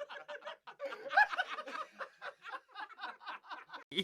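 Rapid, rhythmic snickering laughter in short repeated bursts, about five a second, louder for a moment about a second in.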